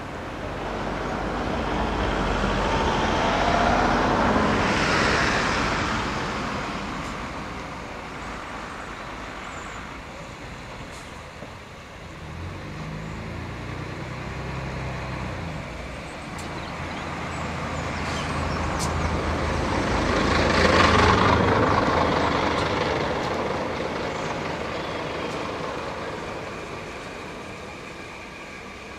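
Southern Railway Schools class 4-4-0 steam locomotive No. 30926 'Repton' rolling slowly into a station with its train of coaches, a steady low rumble of wheels and running gear. A rushing noise swells up twice, about four seconds in and again around twenty seconds.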